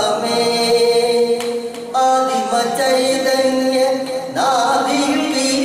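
A man's voice singing a Malayalam song unaccompanied, holding long notes with wavering turns and a short softer gap about a second and a half in.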